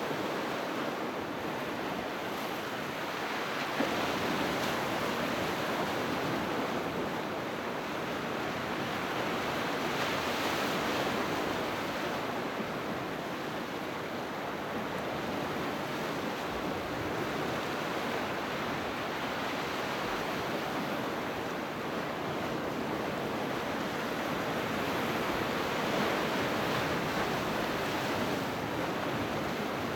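Sea waves breaking and washing on the shore, a continuous surf noise that swells and eases, with a fuller surge about a third of the way in and another near the end.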